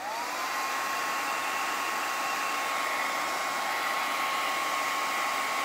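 Handheld hair dryer switching on and running steadily, drying freshly applied ink on a flour-sack towel. Its whine climbs briefly as the motor spins up, then holds one steady pitch over a steady rush of air.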